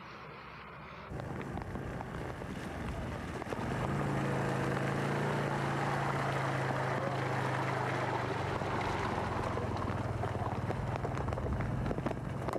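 An engine running steadily, its hum coming in about three and a half seconds in, over outdoor wind noise.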